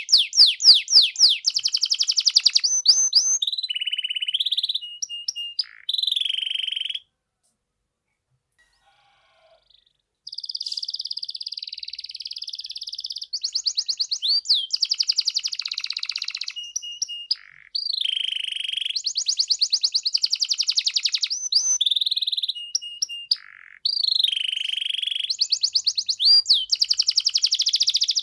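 Domestic canary singing a long song of rapid trills and rolled phrases, the repeated notes changing speed and pitch from phrase to phrase. The song stops for about three seconds some seven seconds in, then resumes.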